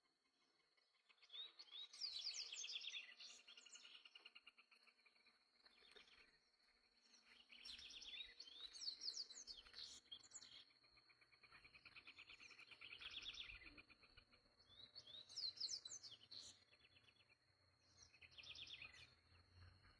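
A papa-capim-baiano seedeater singing: bouts of fast twittering, chattering phrases, about five times with short pauses between, over a steady faint high-pitched whine.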